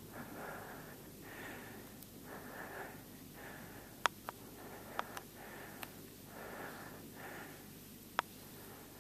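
Faint breathing close to the microphone, soft breaths about once a second, with a few sharp clicks from handling the camera.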